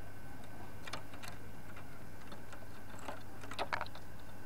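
Caged zebra dove making a few short, sharp clicking sounds, the loudest cluster about three and a half seconds in, over a faint steady hum.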